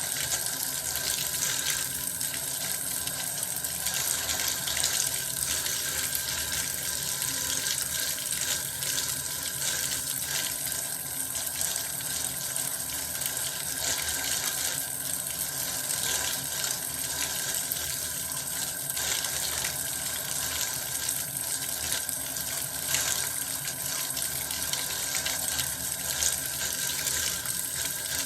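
Water running steadily from a tap into a bath, an even splashing rush that doesn't change.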